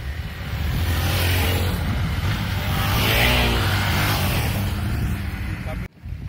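Dirt bike engine revving as the motorcycle rides past close by, loudest about three seconds in, its pitch rising and falling. The sound drops out briefly near the end.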